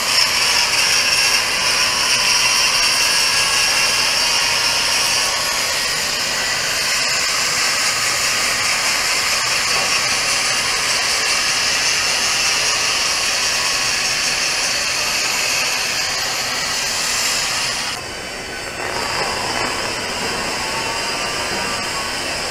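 Angle grinder running steadily with a high whine while grinding down the cap pass of a steel pipe weld, dressing an uneven final pass smooth. It cuts off sharply about eighteen seconds in and gives way to a quieter steady sound.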